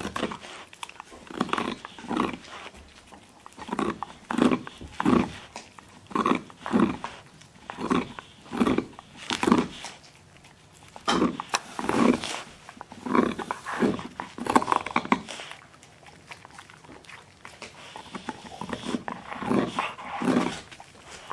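Siberian husky gnawing a hard antler chew: a rhythmic run of loud chewing noises, about one a second, with a pause of a few seconds before a few more near the end.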